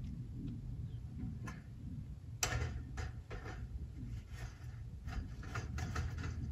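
Irregular run of sharp clicks and taps from hands working at a metal chimney pipe on a roof, starting about two seconds in, over a low steady rumble.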